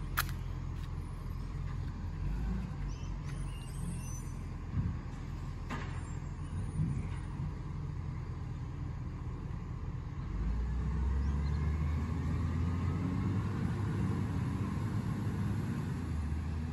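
Diesel engine of a garbage truck running down the street as a steady low rumble, which grows louder about ten seconds in and stays up. A couple of short sharp clicks come near the start and about six seconds in.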